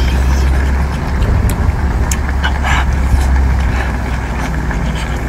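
Steady low rumble like a running engine, easing off about three-quarters of the way through, with short wet clicks and smacks of a person biting and chewing cooked octopus over it.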